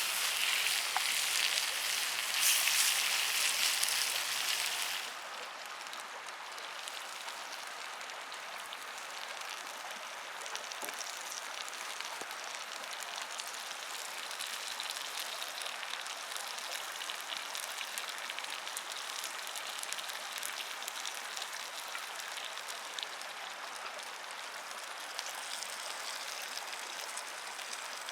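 Food sizzling in a cast iron pan over a campfire: a dense, even hiss with fine crackles. It is louder for about the first five seconds, then drops suddenly to a quieter steady sizzle.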